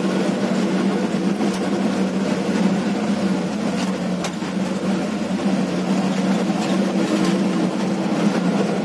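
Laden truck's diesel engine running steadily under way, a constant low drone with a few short knocks or rattles over it.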